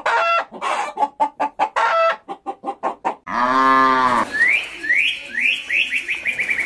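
Hens clucking in quick, short, pitched calls. About three seconds in comes one long, drawn-out farm-animal call. Then a bird gives rising chirps that speed up into a trill.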